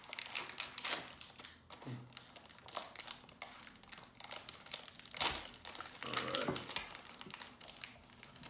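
Foil pouch of a Polaroid i-Type film pack being torn open and crinkled by hand: irregular crackling and rustling, loudest about five seconds in.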